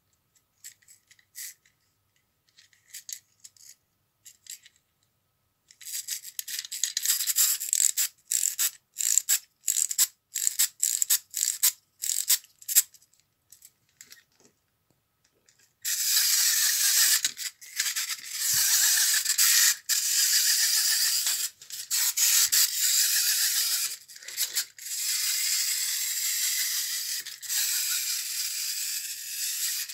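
Wind-up clockwork toy being wound: the key's ratchet clicks in short bursts, one twist after another. About halfway through, the released spring motor starts a steady high-pitched whirring rattle as the toy runs across the tabletop, breaking off briefly now and then.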